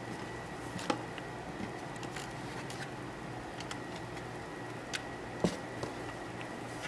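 A few sharp plastic clicks and knocks from a white hand-cranked spiralizer being handled, the loudest about five and a half seconds in, over a steady low hum with a faint high tone.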